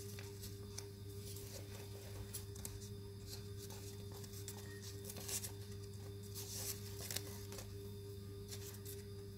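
Construction-paper cut-outs rustling and crinkling against a cardboard tube as they are handled, in short light ticks scattered through, over a steady low hum.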